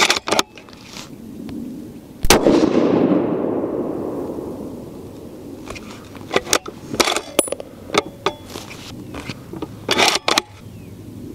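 A 30-06 Remington 700 ADL bolt-action rifle fires one shot about two seconds in, the report trailing off in a long echo. Later come short sharp metallic clicks in two clusters, around six to seven seconds in and again about ten seconds in, as the bolt is worked and the spent case ejected.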